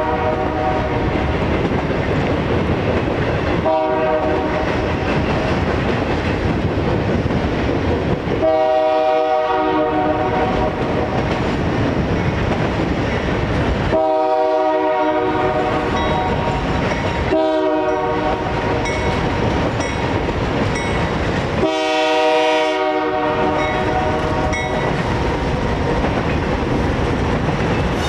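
A diesel locomotive's multi-chime air horn sounding a series of blasts, long, long, short, long, the pattern of a grade-crossing signal, over the steady rumble and clatter of a passing train.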